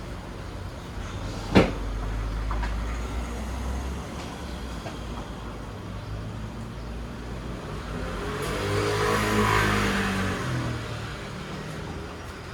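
A single sharp knock about a second and a half in, then a motor vehicle passing by, its engine and tyre noise swelling and fading away near the end.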